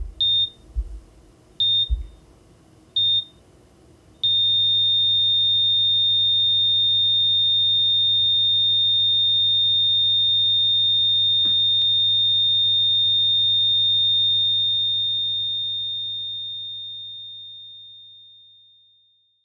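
Heart-monitor beeps, one about every second and a half, then from about four seconds in a single unbroken flatline tone with a low hum under it, held steady and fading out near the end.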